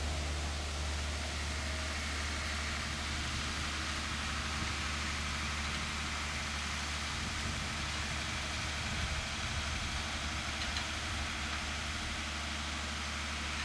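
Fendt Farmer 311 LSA tractor's diesel engine running steadily while it drives a PTO-driven Kuhn GF 502 rotary hay tedder through cut grass.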